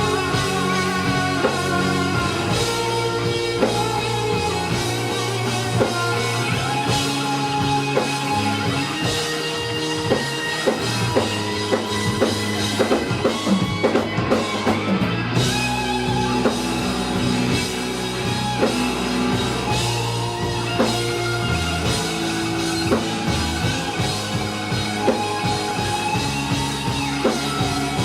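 Live rock band playing the outro guitar solo: lead electric guitar holds sustained melodic lines over drum kit, bass and backing guitar. About halfway through there is a stretch of busy drum hits.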